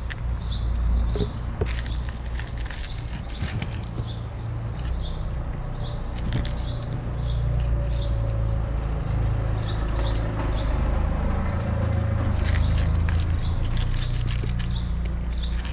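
Cats chewing dry kibble close up: quick crunches, a few a second, over a steady low rumble.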